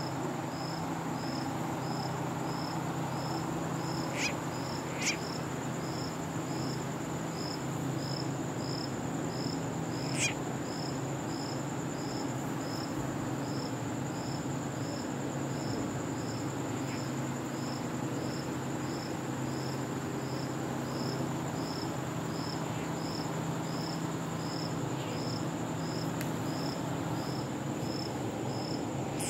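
Night insects chirping, crickets among them: a steady high trill with another insect chirping evenly, about three chirps every two seconds. A low steady hum lies underneath, and a few short sharp clicks come about four, five and ten seconds in.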